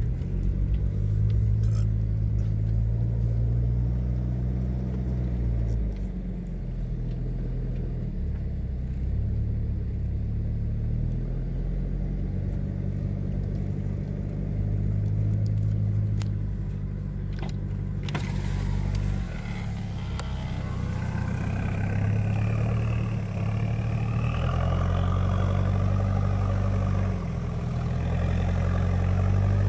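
Toyota Hilux Surf's 2L-TE turbo diesel heard from inside the cab, pulling at low speed with the revs easing off and picking up again several times. A rushing noise joins in about two-thirds of the way through.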